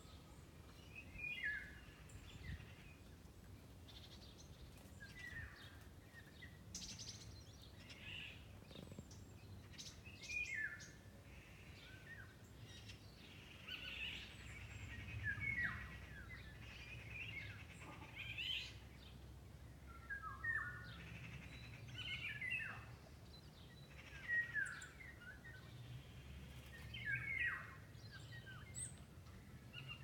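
Songbirds singing in trees, short phrases of quick falling notes repeated every second or two, over a low steady rumble.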